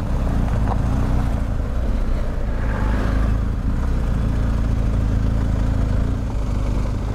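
BMW R1250 GS boxer-twin engine running steadily while riding, with wind and tyre noise over it.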